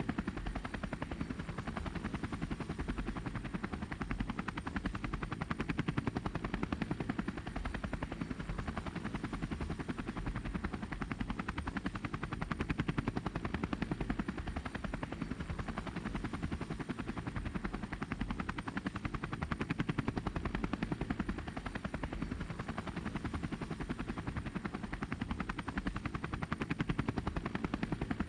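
A motor running steadily with a fast, even pulsing, mostly low in pitch, over a faint constant high whine.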